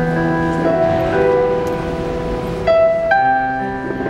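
Piano music playing slow, sustained notes that overlap and ring on, with two brighter high notes struck about two and a half and three seconds in.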